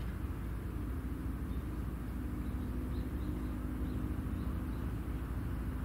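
Steady low outdoor background rumble with a faint steady hum that sets in about a second in, and a few faint, short, high chirps near the middle.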